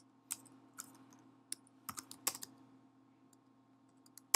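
Typing on a computer keyboard: scattered, uneven keystrokes as a line of code is entered, the sharpest one near the end. A faint steady low hum runs underneath.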